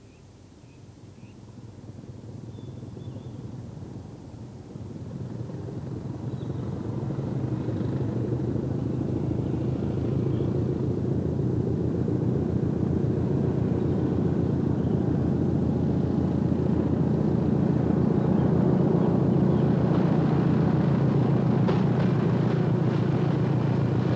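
A Hastings diesel-electric multiple unit approaches and passes close by. Its diesel engine is working under power and grows steadily louder. A few clicks of wheels over rail joints come near the end.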